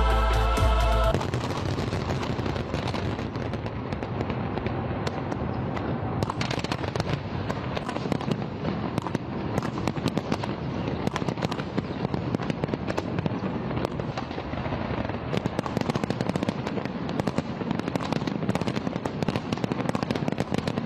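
Aerial fireworks going off in a dense, continuous barrage of overlapping bangs and crackles. It begins about a second in, as music cuts off.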